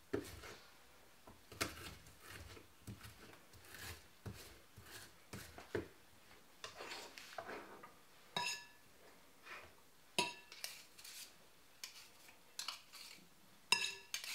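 Garlic press working: scattered knocks and clicks as garlic cloves are pressed, with a few short ringing clinks of metal against a bowl, the clearest about two-thirds of the way through and near the end.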